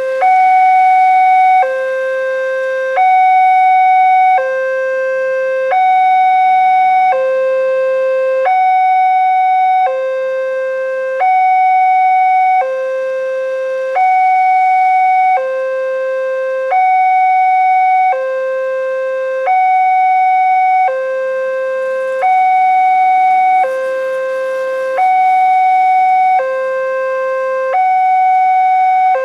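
Railway level-crossing electronic warning bell sounding a steady two-tone alternation, a higher note and a lower note each held about a second and a half in turn, the signal that a train is about to pass.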